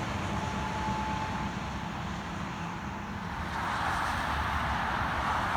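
Road traffic noise: a steady rush of tyres on pavement, growing louder about three and a half seconds in.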